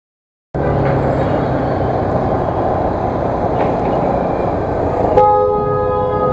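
Half a second of dead silence, then a Bajaj Pulsar NS 200 motorcycle running in heavy city traffic with a steady engine hum. About five seconds in, a vehicle horn sounds a long steady multi-tone blast.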